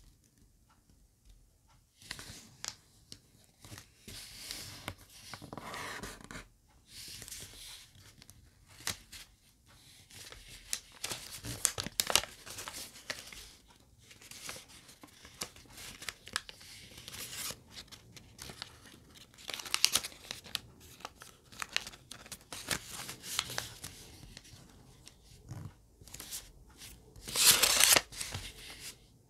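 Sheet of colored origami paper rustling and crinkling as it is folded and creased by hand, in irregular bursts that begin about two seconds in. The loudest rustle comes near the end.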